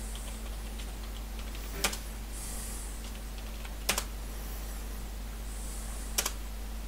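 Keystrokes on a computer keyboard: three sharp key presses about two seconds apart, the second and third each a quick double click, over a faint steady hum.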